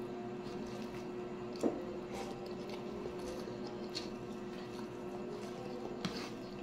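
Mukbang eating sounds: moist chewing of rice and cabbage, with fingers squishing and pinching rice on a plate by hand. A sharp knock comes about one and a half seconds in and a smaller one near the end, over a steady hum.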